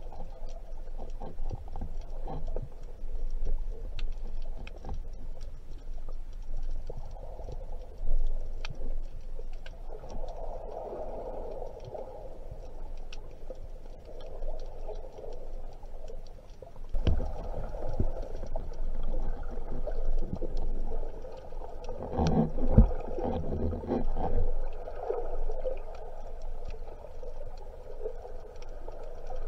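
Underwater sound picked up by a camera in its housing while swimming: a muffled rush of water that swells and fades, with a low rumble and scattered sharp clicks. There are heavier knocks about seventeen seconds in and again around twenty-two to twenty-three seconds.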